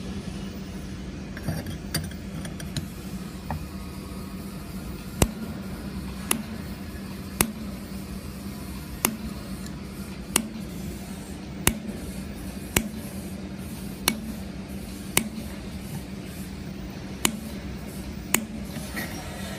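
Handheld laser welding machine running with a steady low hum, with a sharp snap at the steel about once a second.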